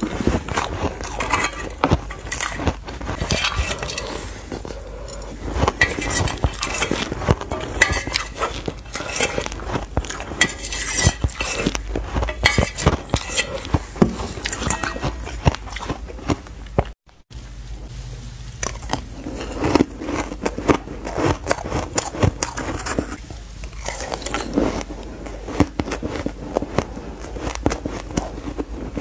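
Frozen shaved ice crunched and chewed in the mouth: dense, crisp crackling bites, with a spoon scraping and clinking in a steel bowl. There is a brief break a little past halfway.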